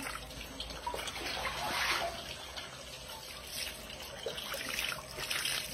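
Water poured from a plastic basin, splashing and trickling over a freshly plucked whole chicken on a concrete slab as the soap is rinsed off, a little louder about two seconds in and again near the end.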